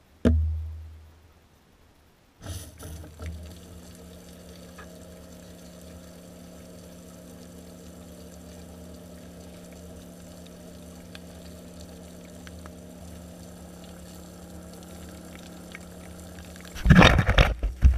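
Outdoor shower water running steadily: a low rushing rumble with a steady hum. A sudden low thump comes right at the start, and loud irregular bumps and rushing fill the last second or so.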